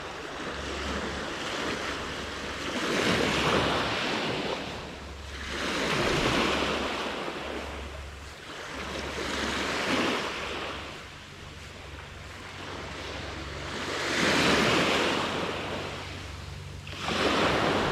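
Small sea waves breaking and washing up the beach at the water's edge, swelling and falling away five times, every three to four seconds.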